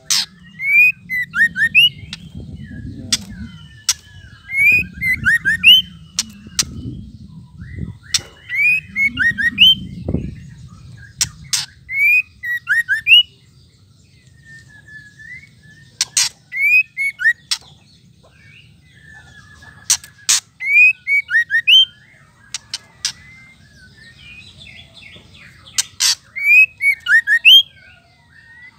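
Female white-rumped shama (murai batu) giving its ketrekan calls: groups of short rising chirps mixed with sharp clicking ticks, coming in bursts every few seconds, with a short lull about halfway through.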